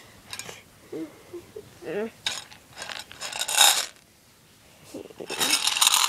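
Plush toys being handled and moved about close to the phone, with rustling, scraping and small metallic clinks, and a few brief wordless vocal sounds.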